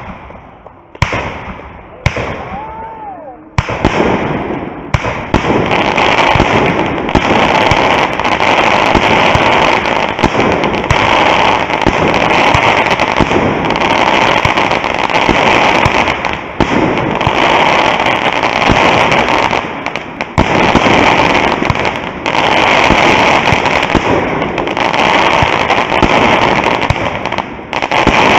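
Fireworks going off. First come three sharp bangs about a second apart, each with a ringing tail, and a short rising-and-falling whistle after the third. Then, from about three and a half seconds in, a dense, continuous crackle from ground-fired pyrotechnics, broken by a few brief lulls.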